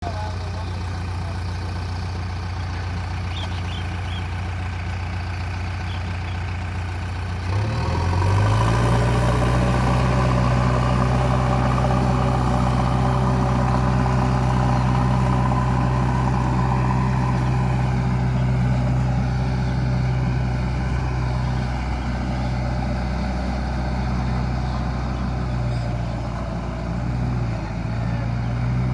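JCB 3DX backhoe loader's diesel engine running steadily. About seven and a half seconds in it revs up, becoming louder and higher, and holds at that higher speed with small dips in the last few seconds.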